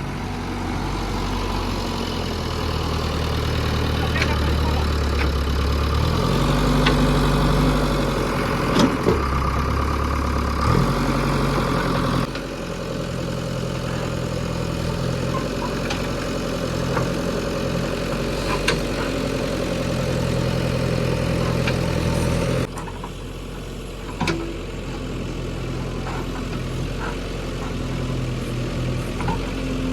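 JCB 3DX backhoe loader's diesel engine running while it works, its pitch stepping up and down several times, with a few sharp knocks.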